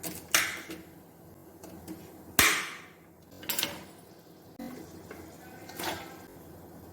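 Kitchen handling noises: four separate knocks and clatters with short rustling tails, the loudest, with a dull thud, about two and a half seconds in.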